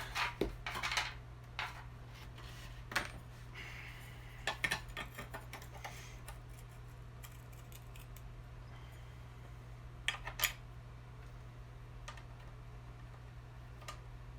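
Scattered metal clinks and clicks of parts being handled as the blade is fitted back onto a tile saw's motor shaft. There is a cluster in the first few seconds, a lull, then a couple more clinks.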